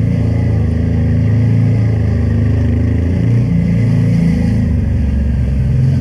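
Honda Transalp 600's V-twin engine running as the motorcycle is ridden, its pitch rising and falling with the throttle.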